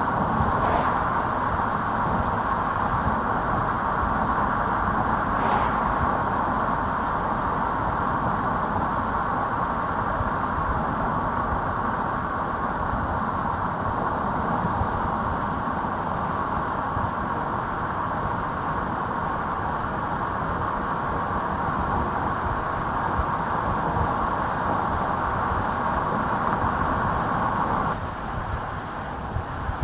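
Car driving on a country road: steady tyre and road noise over a low engine hum, with a few faint clicks. The noise drops a little near the end.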